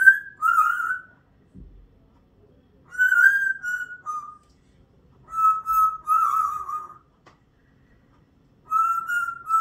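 African grey parrot whistling a short tune in four phrases of clear notes, each a second or so long, with pauses between.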